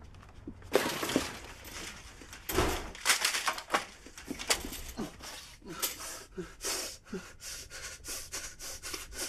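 A person breathing hard and gasping, with short noisy knocks and rustles in between.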